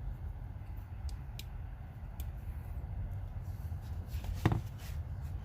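Hand-tool handling: a pair of spring-loaded pliers being opened and closed, giving a few faint clicks and one sharper click about four and a half seconds in, over a low steady hum.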